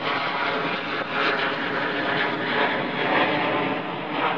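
Twin-engine jet airliner on final approach, its jet engines running as a loud, steady rush with a faint whine. The level swells and eases slightly.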